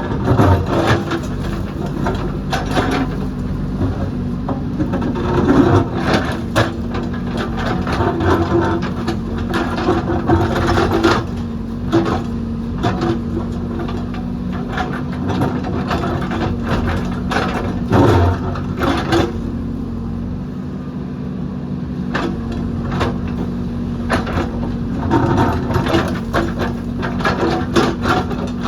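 JCB backhoe loader's diesel engine running steadily as the machine digs, with frequent sharp clanks and knocks from the bucket and arm working.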